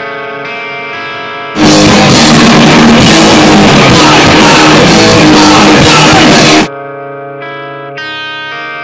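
Rock band practice: held guitar chords through effects, then about a second and a half in the drum kit and distorted guitar crash in together, so loud that the recording overloads. After about five seconds the band drops out, leaving the ringing guitar chords again.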